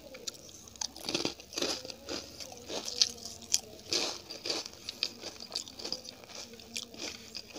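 A person biting and chewing crisp fried food close to the microphone: a run of irregular crunches, the sharpest about three seconds in.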